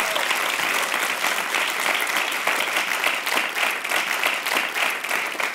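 Theatre audience applauding: dense, steady clapping that starts to fade near the end.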